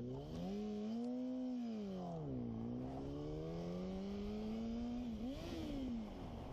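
Sport motorcycle engine pulling hard and easing off in waves at riding speed: the pitch climbs and drops once, climbs slowly again, jumps sharply just after five seconds in, then falls away near the end, over steady wind and road noise.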